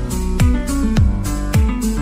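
Background music with a steady kick-drum beat, a little under two beats a second, under sustained pitched notes.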